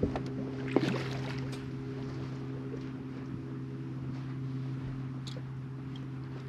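Steady, even hum of a bass boat's bow-mounted electric trolling motor running, with a couple of sharp knocks in the first second.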